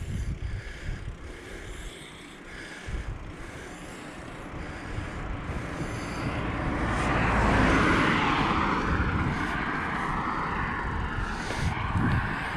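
A car overtaking the bicycle: its tyre and engine noise swells to a peak about eight seconds in and then fades away, over low wind rumble on the microphone.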